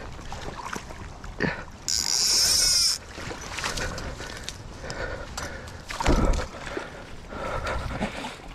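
Fishing reel drag buzzing for about a second, about two seconds in, as a hooked steelhead pulls line off it. A short low thump comes about six seconds in.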